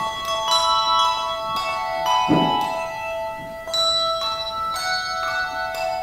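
Handbell choir playing: handbells struck one after another in chords and runs, each note ringing on and overlapping the next, with a low thud about two seconds in.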